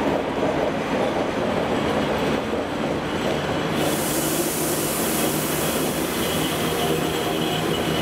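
PKP Cargo ET22 six-axle electric freight locomotive hauling a train of loaded open coal wagons past at speed, its wheels running steadily on the rails. A loud hiss starts about four seconds in as the locomotive draws level.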